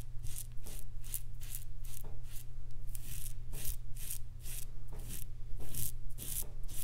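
Double-edge safety razor with an Astra Superior Platinum blade cutting lathered stubble on the neck, in short scraping strokes about two or three a second, on a pass against the grain.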